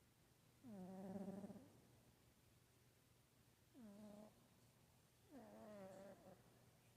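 Cat snoring in its sleep: three faint pitched snores about two seconds apart, the first and last about a second long and the middle one shorter.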